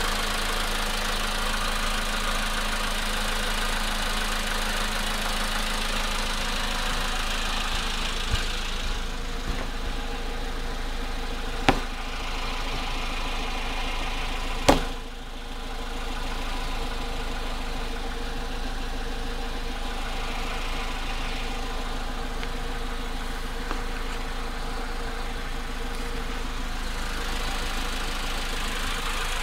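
Volkswagen Polo Sedan engine running cold at idle with a knocking that is getting worse on the cold engine. Steady running, with a couple of sharp clicks about 12 and 15 seconds in.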